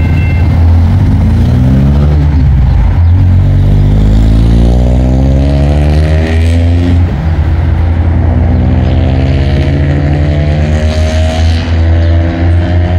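An engine revving up in three rising sweeps over a loud low rumble, each sweep climbing in pitch for two or three seconds before dropping back.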